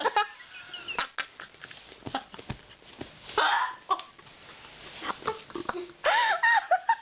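A girl hiccuping: several short, sudden hiccups spread over a few seconds, then high-pitched voice sounds near the end.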